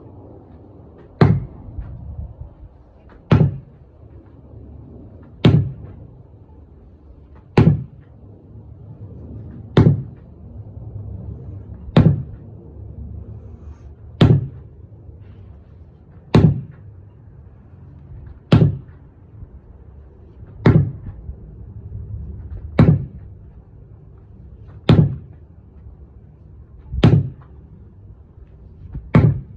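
12-pound sledgehammer striking a tire over and over at a steady pace, about one heavy thud every two seconds, fourteen in all.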